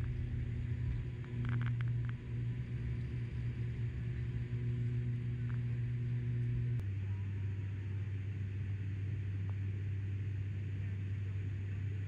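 Turboprop airliner's engines and propellers heard from inside the cabin during takeoff and climb-out: a loud, steady, low drone that drops to a lower pitch about seven seconds in.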